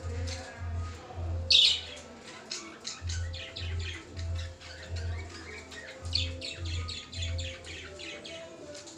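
Pet parakeets calling: a loud harsh squawk about one and a half seconds in and another around six seconds, with a rapid run of short chirps between them. Background music with a steady low beat runs underneath.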